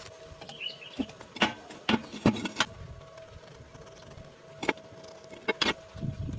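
Irregular sharp knocks and taps, several close together in the first few seconds and a few more later, over a faint steady hum.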